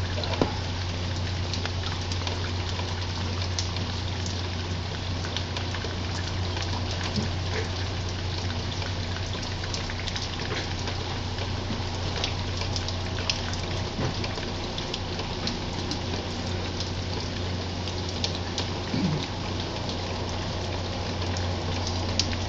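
Steady background hiss with a low, even hum underneath and a few faint scattered ticks.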